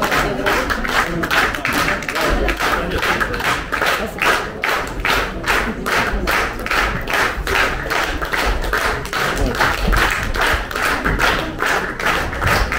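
Audience clapping in unison in a steady rhythm, over music.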